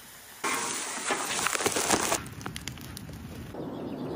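Fire crackling: a sudden loud burst of dense crackling and snapping about half a second in, lasting nearly two seconds, then a softer crackle.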